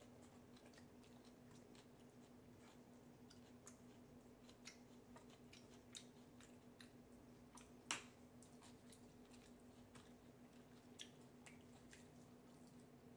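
Near silence: faint scattered clicks and taps of chopsticks against a frying pan, with one sharper click about eight seconds in, over a steady low hum.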